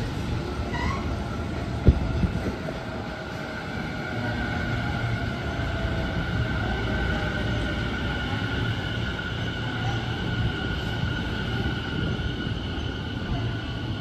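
Tobu Tojo Line electric train running, with a continuous rumble and a steady high whine. There is one sharp click about two seconds in.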